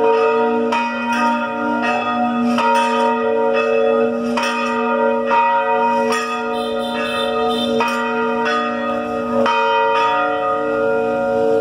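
Church bells ringing a peal: several bells of different pitches struck about twice a second, their long tones overlapping.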